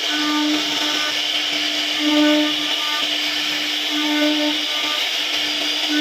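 CNC router spindle running steadily while its bit carves wood, a constant high hum over a cutting hiss. The cutting swells louder about every two seconds as the bit makes its back-and-forth passes.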